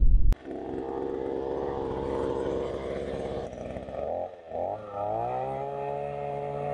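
Takyo TK-2P earth auger's 49 cc petrol engine running steadily. About four seconds in it drops out briefly twice, then picks up into a steady, slightly higher note. A loud intro sound cuts off just as the engine is heard.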